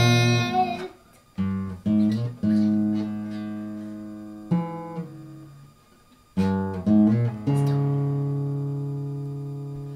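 Acoustic guitar playing a short run of plucked chords with pauses between them, ending on a final chord that is left ringing and slowly fades. The tail of a girl's singing ends under a second in.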